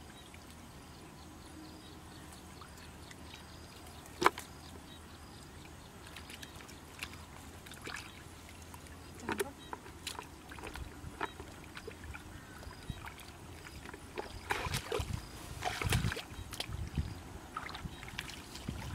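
Hands sloshing and splashing in shallow muddy water while groping through the mud, with scattered sharp clicks. One loud click comes about four seconds in, and the splashing grows busier and louder near the end.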